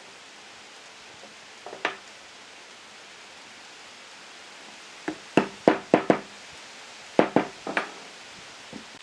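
Sharp wooden knocks as a round tenon is driven down into a glued mortise in a log: a short double knock about two seconds in, then two quick runs of four or five knocks between about five and eight seconds, over a steady hiss.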